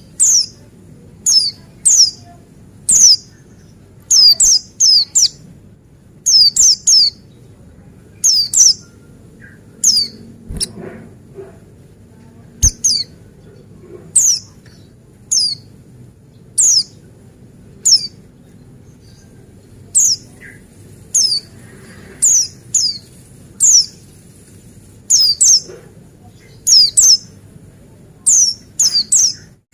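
Pleci buxtoni white-eye calling: short, high, sharply falling notes, repeated every second or two, often in quick pairs or threes.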